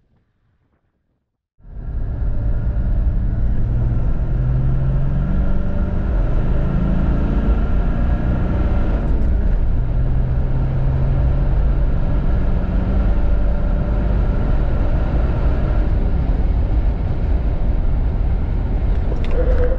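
Near silence for the first second and a half. Then the 2022 Toyota LandCruiser 70 Series' 4.5-litre turbo-diesel V8 runs under acceleration, heard from inside the cabin. Its pitch climbs and drops back several times as the five-speed manual is shifted up, then it settles into a steady run at highway speed.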